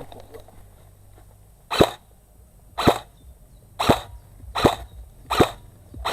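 A&K SR25 airsoft electric rifle, locked to semi-auto, firing single shots: five sharp reports about a second apart, with a sixth at the very end.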